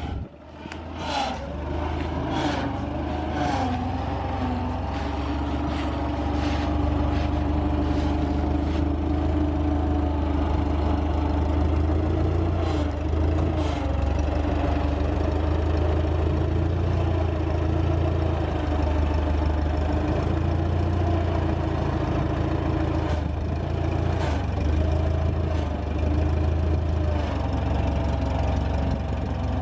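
An engine running steadily with a deep low rumble, coming up to full level within the first couple of seconds, with a few sharp clicks in the first several seconds.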